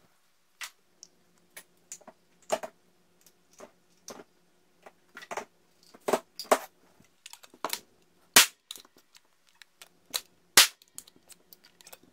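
Clicks and clacks of primed empty 12-gauge hulls and a Hatfield SS12 single-shot break-action shotgun being handled, with two sharp cracks about eight and ten and a half seconds in. These are primers popped by the hammer to test that the lightened hammer spring still gives reliable primer strikes.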